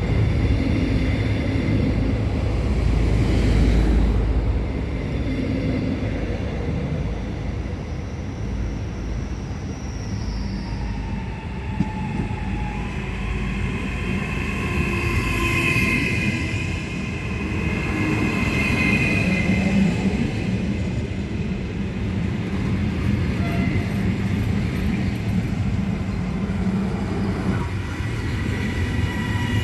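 Two coupled ETR 421 electric multiple units running, a continuous heavy rumble with high whining tones that come and go and shift slightly in pitch.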